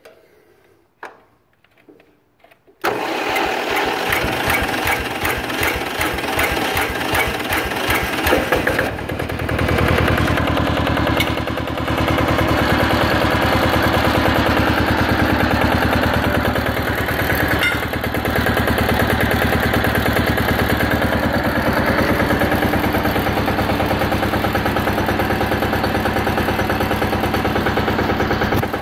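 Kohler diesel engine fitted to a Ford T-1000 garden tractor, cranked over for about six seconds starting about three seconds in. Around nine seconds it catches and settles into steady running, with the even clatter of a diesel.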